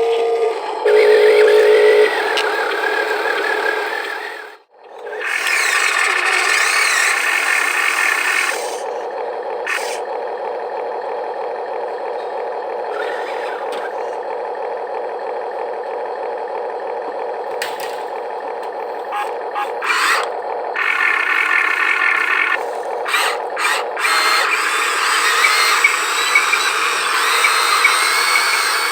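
Small electric motors and plastic gearboxes of a Huina RC construction model whining as they run, starting and stopping several times, with scraping and rattling as sand is worked.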